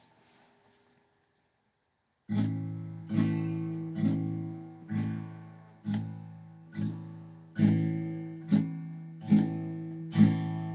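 Guitar strummed in single chords about once a second, each left to ring and fade, starting about two seconds in after near silence broken by a couple of faint clicks.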